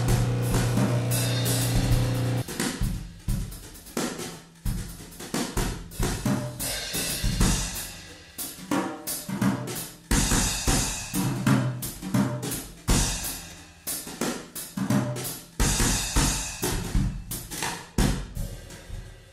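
Background music: a held chord, then a steady drum-kit beat from about two seconds in.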